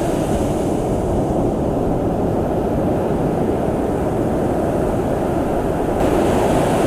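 Ocean surf washing up the beach under a steady low rumble of wind on the microphone; the hiss of the wash grows a little near the end.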